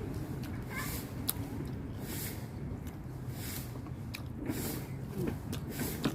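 Close-up mouth sounds of a person eating: chewing and biting with noisy breaths about every second, and a few sharp clicks.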